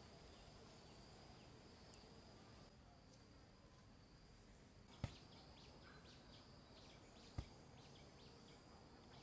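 Faint outdoor ambience: a steady high-pitched insect buzz with scattered chirps, and two sharp knocks, about five and seven and a half seconds in.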